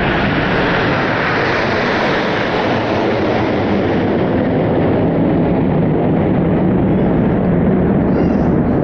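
Red Arrows BAE Hawk jets passing overhead: a loud, steady rushing engine noise that slowly drops in pitch as they go by and move away.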